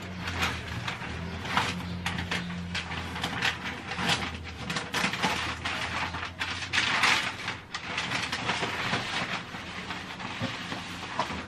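Irregular rustling and crackling of self-adhesive contact film and its paper backing being handled and peeled back while the film is laid on a countertop.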